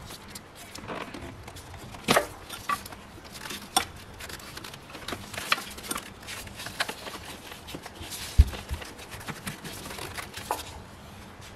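Scattered clicks, knocks and rubbing as gloved hands work the rubber coolant hose onto the thermostat housing outlet, with one dull low thump, the loudest sound, about two-thirds of the way through.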